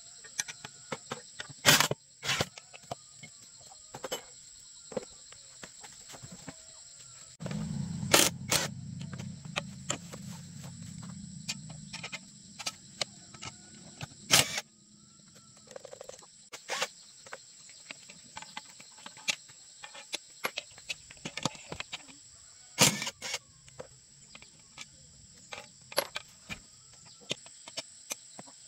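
Makita cordless impact wrench running on a tractor wheel's hub nuts for about four seconds, with several sharp metal clanks of tools and nuts around it. Steady insect drone, crickets, behind it.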